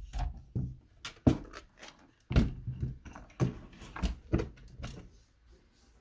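Hermes 2000 portable manual typewriter being worked: about a dozen irregular clacks and knocks with dull thumps under them, fading out about five seconds in.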